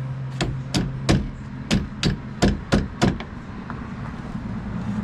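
A quick run of about nine sharp knocks, roughly three a second, stopping about three seconds in.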